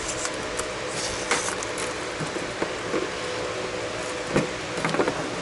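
Softened glue cracking as the lens of a Ford Transit 250 headlight assembly is pried away from its housing: scattered sharp clicks and crackles over a steady hiss. The cracking is the sign that the glue seam is coming apart.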